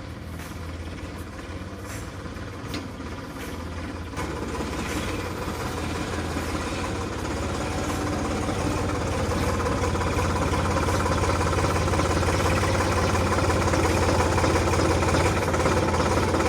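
Sonalika tractor's diesel engine running steadily, growing gradually louder.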